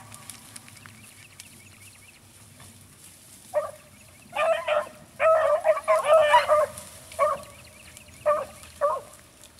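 Beagle hounds baying, giving tongue on the scent during a chase. After a few quiet seconds the bays come in, overlapping thickly in the middle, then a few single bays spaced apart near the end.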